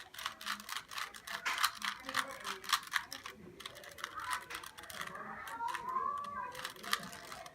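Plastic Rubik's cube being turned rapidly by hand: a fast, uneven run of clicks and clacks as its layers snap round, several a second.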